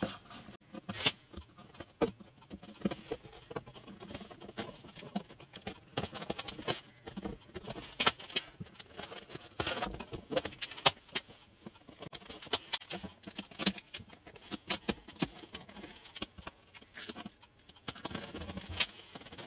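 Masking tape being torn off in short strips and pressed down by hand: irregular small crackles and clicks throughout, with a few louder ones.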